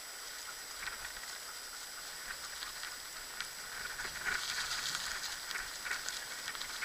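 Kick scooter rolling along a trail behind four pulling dogs: a steady rustle of wheels with light pattering of paws on the ground, a little louder from about four seconds in.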